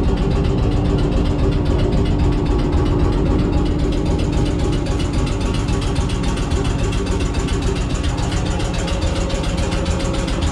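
Machinery of the Metropolitan Railway electric locomotive 'Sarah Siddons' running steadily inside the locomotive. It is a loud, even mechanical hum at a constant pitch with a fast, regular rattle.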